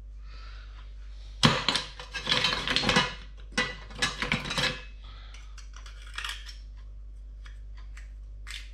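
Oyster shells and a metal knife clattering and scraping in a stainless steel saucepan as cooked oysters are picked out. There are two spells of dense clinking, about a second and a half in and about three and a half seconds in, then a few lighter clicks.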